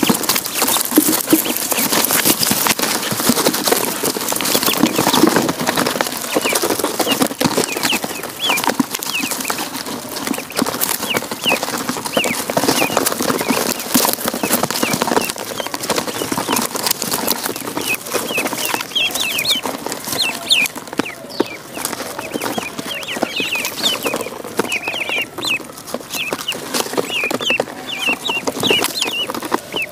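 A brood of ducklings peeping continually in many short, high chirps while they feed, with a steady clatter of small clicks and taps as they peck grain from their feeding dish.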